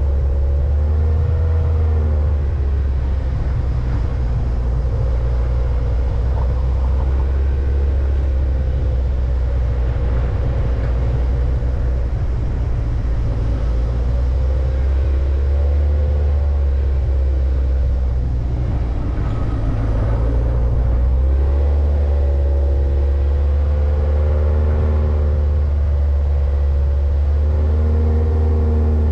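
Vehicle engine running under way, its pitch wavering up and down, over a heavy, steady low rumble.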